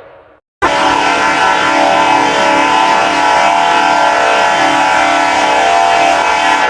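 A train whistle sounding one long, steady, multi-note chord blast of about six seconds, starting abruptly after a short silence. Just before it, the tail of the previous whistle dies away.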